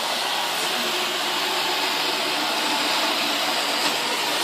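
Roomba robot vacuum running with a steady whirring hum and a faint high tone.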